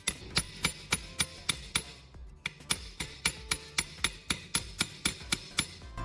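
Rapid, evenly spaced hammer blows, about three to four a second, with a short pause about two seconds in, over background music.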